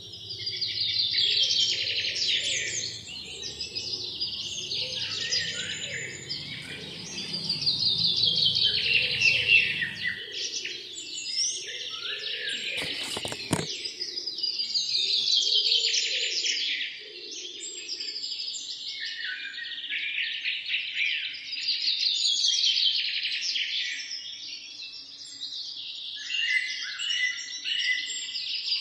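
Songbirds chirping and singing together, a dense chorus that swells and fades every few seconds. One brief click about halfway through.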